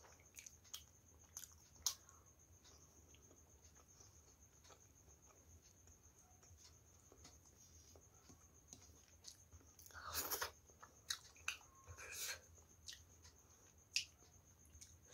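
Near silence broken by a few faint, short eating sounds: soft clicks, chewing, and fingers wiping a plate. The few slightly louder mouth noises fall about ten, twelve and fourteen seconds in.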